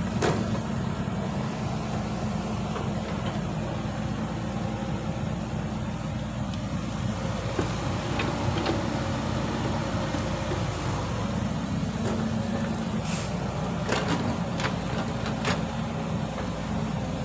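Caterpillar 312B hydraulic excavator's diesel engine running steadily as it swings and dumps soil into a dump truck, with a few sharp knocks of the bucket and the falling load, most of them near the end.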